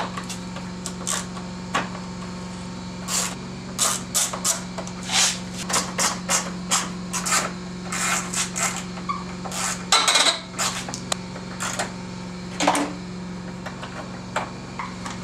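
Metal hand tool clicking and clinking at irregular intervals while T27 Torx screws are backed out of a car's plastic front lock carrier, over a steady low hum. The loudest clink, with a short ring, comes about ten seconds in.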